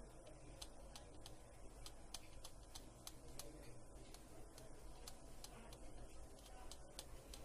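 Faint, light clicks, about two or three a second and somewhat uneven, over a low steady hum.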